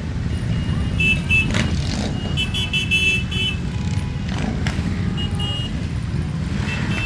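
A procession of motorcycles riding past in a column, their engines making a dense, steady low rumble. A high, stuttering two-tone beeping sounds twice in the first half.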